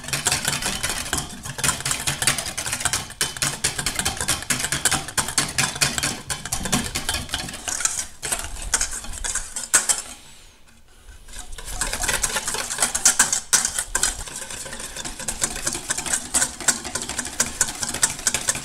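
Wire whisk beating rapidly against the inside of a stainless steel mixing bowl, clinking and scraping as olive oil is slowly whisked into a vinaigrette to emulsify it. The whisking stops for about a second and a half near the middle, then carries on.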